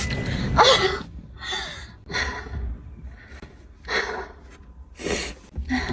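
A person's breathy gasps and sharp breaths in short bursts about a second apart, the first with a brief voiced cry falling in pitch, as in a put-on fake sneeze.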